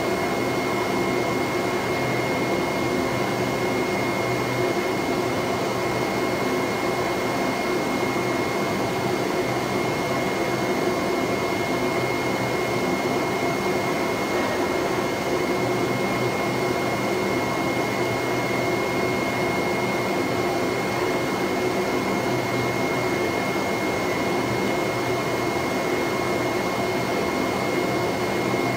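Flatbed CNC sticker-cutting table running as its knife head cuts a printed sheet: a steady whir from the table's vacuum hold-down blower, with a thin, high whine over it.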